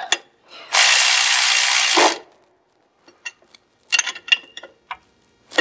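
Cordless ratchet running for about a second and a half as it snugs down a clutch-weight bolt in a Polaris RZR's primary clutch. It stops abruptly, and a few light metal clicks follow.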